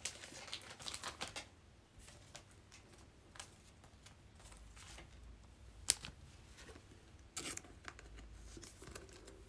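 Soft crinkling and rustling of thin plastic card sleeves being handled, with scattered light ticks and one sharp click about six seconds in.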